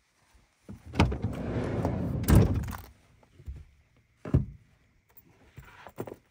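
Minivan sliding side door unlatched with a click about a second in, rolling open and stopping with a loud thunk. A single sharp knock follows a couple of seconds later.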